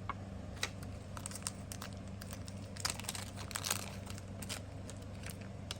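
Small plastic parts bags being handled and crinkled, with scattered light clicks and crackles, busiest in the middle, over a steady low hum.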